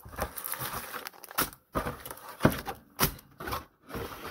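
Plastic shrink-wrap and packaging crinkling and rustling in irregular bursts, with a few sharp knocks, as products are handled and lifted out of a cardboard box.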